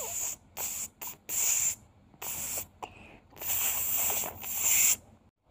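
Glitch sound effect: about eight bursts of harsh static hiss, cutting in and out irregularly, the longest lasting about a second in the second half.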